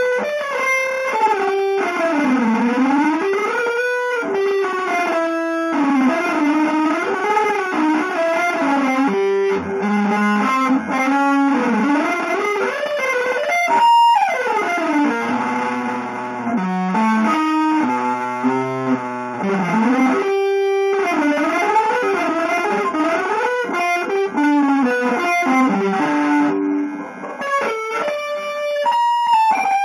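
Electric guitar through effects and light distortion, improvising an avant-garde line: sustained notes that swoop and slide smoothly up and down in pitch, broken by short runs of quick stepped notes.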